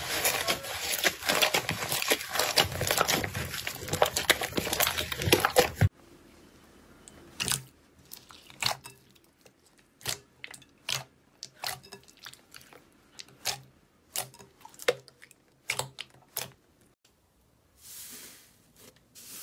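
Hands squishing and stretching slime: dense, loud crackling for about six seconds that stops abruptly, then, after a cut, separate sharp pops and clicks as clear slime is poked, then a soft hiss as fluffy slime is pressed near the end.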